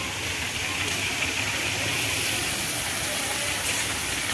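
Water fountains spraying and splashing into a pool: a steady hiss.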